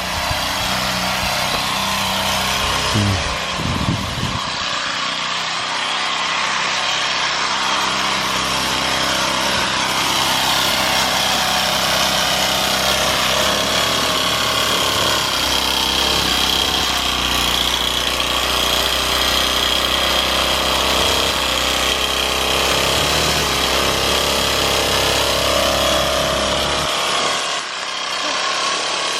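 A power tool running continuously at a steady speed, with a steady high whine over its noise.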